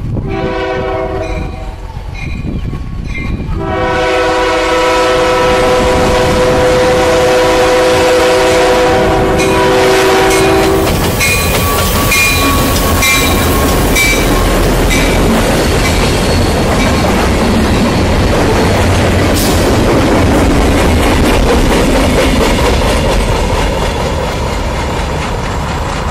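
Union Pacific diesel locomotives' air horn sounding a short blast, then a long one of about seven seconds at the road crossing. The two locomotives then pass close by with a heavy rumble and wheels clicking over the rail joints, followed by a short string of four cars rolling by.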